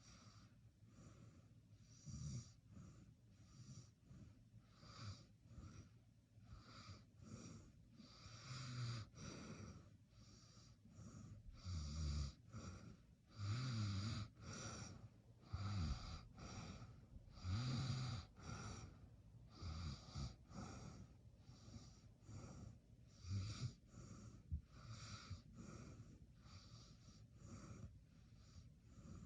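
A person snoring in their sleep: faint, irregular wheezy breaths and snorts, with a few louder snorts in the middle stretch.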